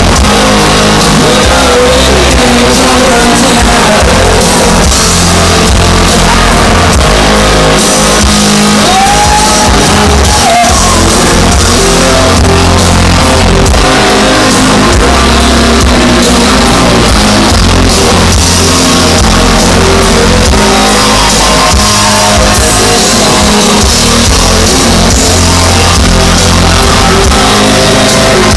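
Live rock band playing loud heavy rock, with electric guitars over bass and drums, heard from within the concert crowd.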